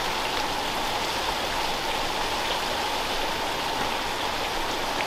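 Thin streams of water falling off a rock ledge and splashing steadily into a shallow pool below.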